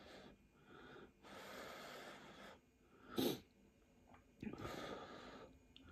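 Quiet breath and mouth sounds of a person eating noodles from chopsticks: a few airy puffs of about a second each, and one short, louder slurp about three seconds in.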